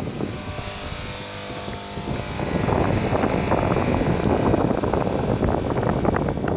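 Wind buffeting the microphone at the foot of a Nordex N131 wind turbine tower, over a faint steady hum of several tones in the first two seconds. About two seconds in, the noise grows louder and rougher and stays that way.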